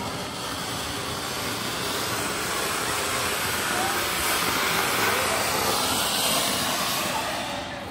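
Large ground fountain firework spraying a tall column of sparks with a steady rushing hiss. The hiss swells slightly through the middle, then dies away near the end as the fountain burns out.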